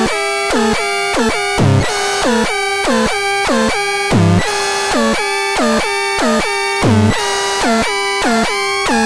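Electronic synthesizer music: a fast run of pitched notes, each sliding down in pitch, with a low bass hit about every two and a half seconds, three times.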